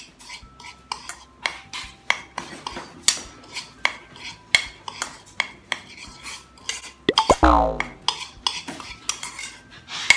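Metal spoon clinking and scraping against a bowl as dry rice flour and milk powder are stirred together, in quick irregular strokes, with one louder bump about seven seconds in.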